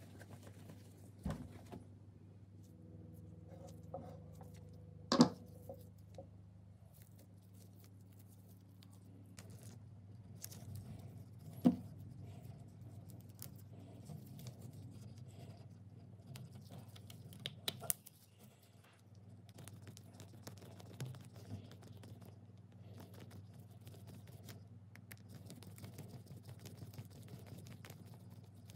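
Close-up hand work on small parts of an antique electric drill: cloth rubbing, rustling and light scraping, with a few sharp clicks and taps, the loudest about five seconds in and again about twelve seconds in.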